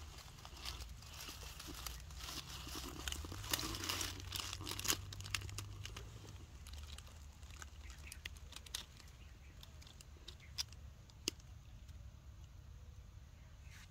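Soft dry crackling and rustling, busiest in the first two-thirds, with a few sharper clicks near the end.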